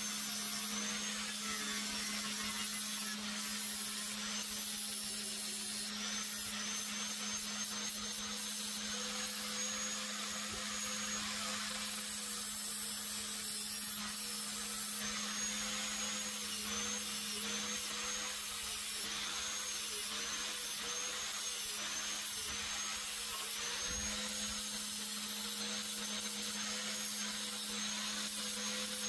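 Electric angle grinder running continuously, grinding a weld flush on a steel mower deck's wheel-bolt mount. A steady motor whine that dips in pitch again and again as the disc bears on the metal.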